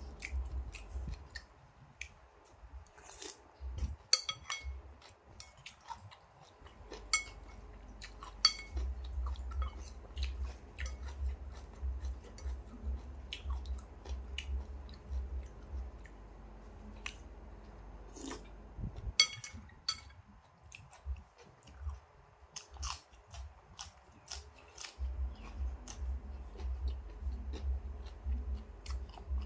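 Close-up chewing of a mouthful of noodle soup, in runs of soft rhythmic thuds, with sharp clinks now and then of utensils against the bowl.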